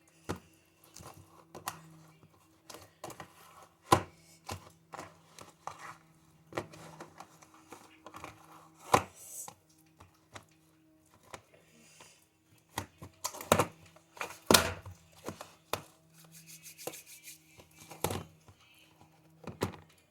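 Sticky slime being squeezed, stretched and pressed by hand: irregular wet pops, clicks and snaps, a few much louder than the rest, over a faint steady hum.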